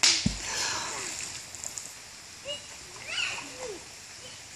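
A big splash as a child is thrown into creek water, sudden at the start with a thump, then water washing and settling over about a second. Short children's cries follow.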